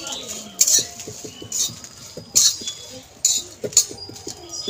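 Metal spatula scraping dried red chillies around a dry metal kadai during dry-roasting, a scrape every second or so with small clicks in between.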